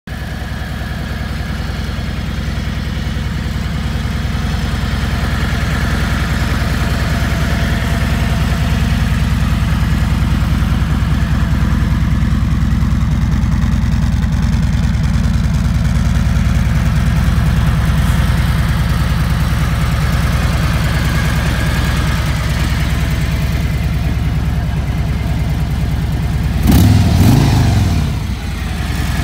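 Harley-Davidson Milwaukee-Eight 107 V-twin idling steadily, then briefly blipped up in revs near the end and dropping back to idle.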